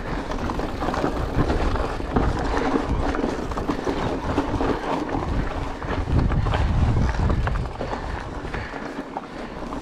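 Mountain bike riding over loose rocky gravel: tyres crunching and the bike rattling, with wind rumbling on the microphone. The rumble is heaviest from about six to seven and a half seconds in.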